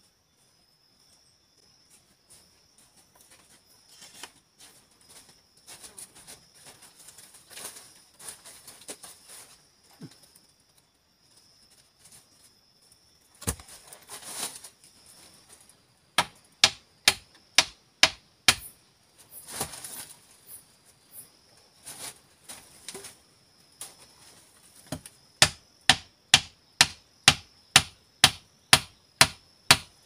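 A wooden stake being pounded into the ground during trap setting: runs of sharp, even knocks about two to three a second, one run midway and a longer one near the end. Dry leaves rustle before the knocking starts.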